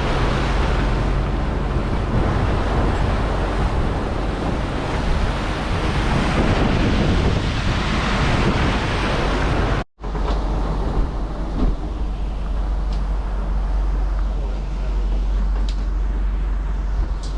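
Strong wind buffeting the microphone over rushing sea water aboard a sailboat under way, with a steady low rumble beneath. The sound drops out for an instant about ten seconds in, then the same wind and water noise carries on.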